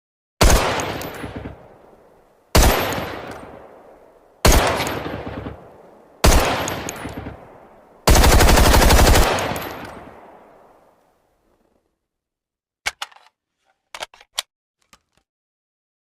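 AR-15 rifle gunfire sound effect: four single shots about two seconds apart, each with a long echoing tail, then a rapid-fire burst lasting just over a second that dies away. A few faint clicks come near the end.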